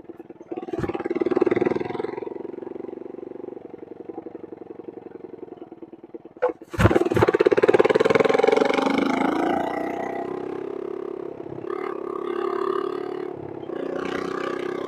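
Small motorcycle engine running steadily while riding, heard from a helmet-mounted camera, with louder surges about a second in and again from about seven seconds in, the second one preceded by a few sharp knocks.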